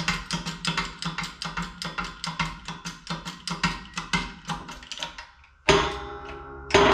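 Music with a fast, steady beat of about four hits a second. Near the end come two loud sudden hits that ring on.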